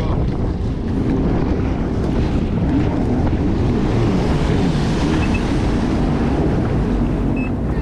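Jet ski engine running while riding on open water, with wind buffeting the microphone. The engine pitch wavers up and down.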